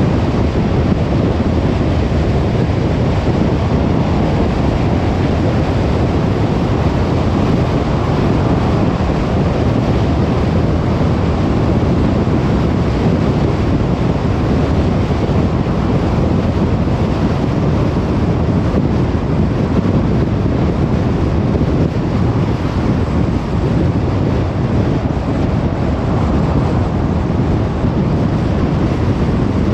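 Car driving at a steady speed: a constant low rumble of road and tyre noise, with no change in pitch or level.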